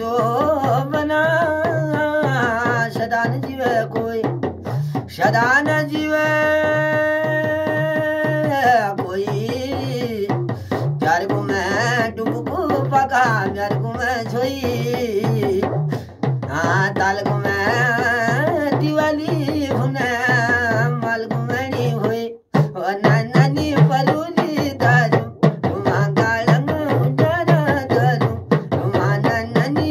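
Uttarakhandi folk song sung by a man over a hudka, the hourglass-shaped hand drum, beaten in a steady rhythm. The voice holds one long note about a quarter of the way through.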